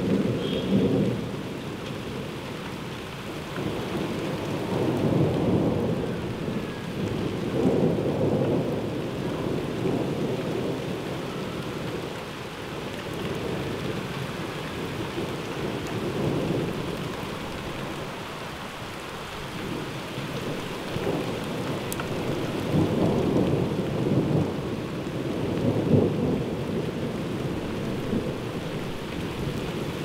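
Heavy rain falling steadily through a thunderstorm, with rolls of thunder that swell and fade several times, most strongly near the start and again in the last third.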